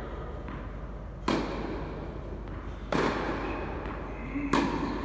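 Tennis rally on an indoor court: three sharp pops of racquet strings hitting the ball, about a second and a half apart, each echoing briefly in the hall.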